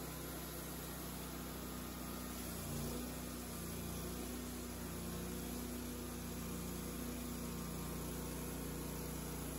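Wood-Mizer band sawmill running steadily, its engine humming as the band blade feeds into a black cherry log. The cut is going slowly through cross grain, which the sawyer puts down to a blade that has lost its edge.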